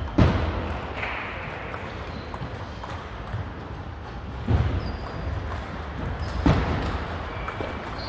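Table tennis play in a large echoing hall: light ball clicks and three heavy, echoing thuds, one about a quarter second in, one about four and a half seconds in and one about six and a half seconds in.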